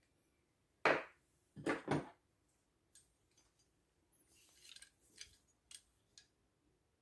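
Handling noises from work on a tool bag. There are two loud scraping strokes about a second in and just before two seconds, then a softer rustle and a few light clicks.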